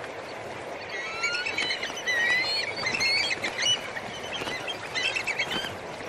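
A large flock of flamingos calling, with many short honking and gabbling calls overlapping over a steady background hiss. The calls start about a second in and thin out near the end.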